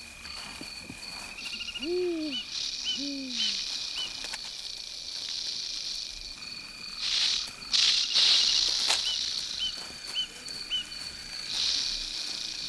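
Porcupine rattling its raised quills in several loud, hissing bursts, the biggest about eight seconds in, over a steady high trill of night insects. Two low hoots sound in the first few seconds.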